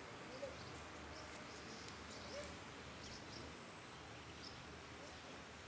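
Faint outdoor ambience: a steady low hiss with scattered short, high bird chirps.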